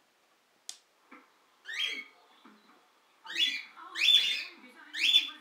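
Rose-ringed (Indian ringneck) parakeet calling four times in short, rasping cries, the first one softer, with a single sharp click about a second in.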